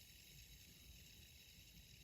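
Near silence: steady faint hiss and low hum of room tone.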